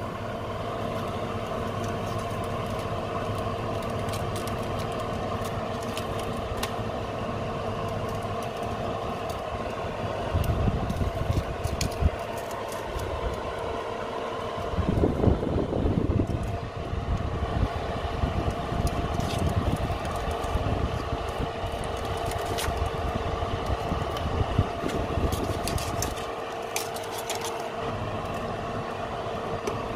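Oven fan running with a steady hum, with faint crackling from chicken quarters roasting on the rack. Tongs knock and scrape now and then as the pieces are turned, with a louder rustling bump about halfway through.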